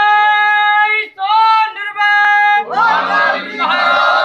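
A single loud voice calling out in two long, steady held notes, then a group of men's voices joining in together, shouting in unison.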